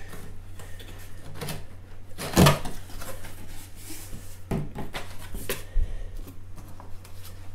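Large cardboard box lid being pulled open by hand: cardboard scraping and flapping, with a sharp thump about two and a half seconds in, then lighter knocks and rustles as the packing is handled.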